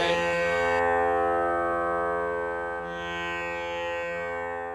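Sustained musical drone holding several steady tones, the accompaniment left ringing once the chanting stops, fading near the end.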